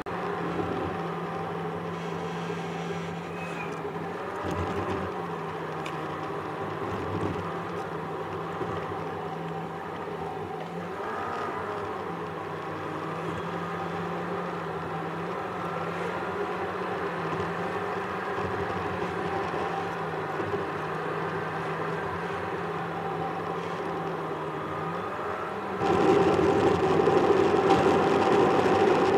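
A car's steady engine drone and road noise heard from inside the cabin while driving. It turns abruptly louder and rougher near the end.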